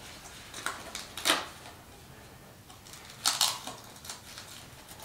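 A few short, sharp clicks and clacks of parts being handled and fitted on the steel pontoon-boat frame: one about a second in, the loudest, and a quick pair a little past the middle.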